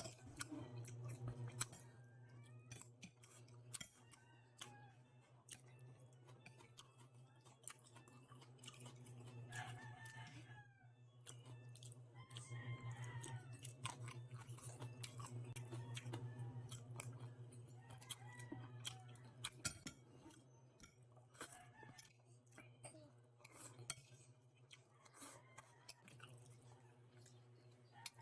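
A person quietly chewing a meal of fish soup and seaweed, with many small sharp mouth and utensil clicks over a steady low hum. Chickens cluck faintly in the background a few times.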